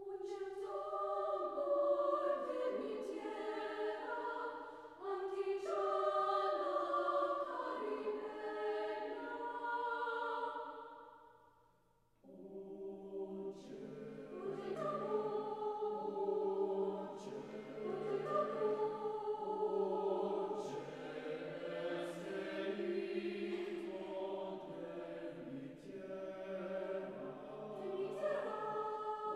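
Mixed choir singing in parts, with short, crisp syllables cutting through the sound. The voices fade out to a short break just before the middle, and then the full choir comes back in with lower voices added.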